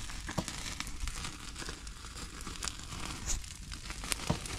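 Open wood fire crackling, with scattered sharp pops, as pork on bamboo skewers roasts over the flames.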